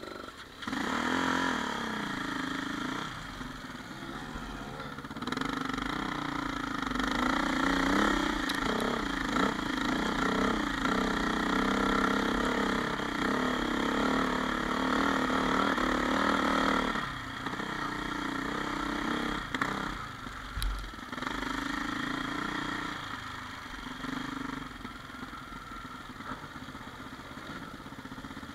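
2000 KTM 400 EXC four-stroke single-cylinder dirt bike engine pulling away and riding along a muddy track, with the throttle opening and closing. It runs harder from about five seconds in and eases back at about seventeen seconds.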